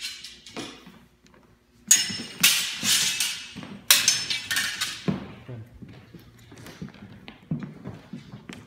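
Steel training longswords clashing in sparring. A sharp clash about two seconds in and another about four seconds in are each followed by a quick flurry of blade contacts and a metallic ring lasting about a second. Softer thuds of feet on a wooden floor run underneath.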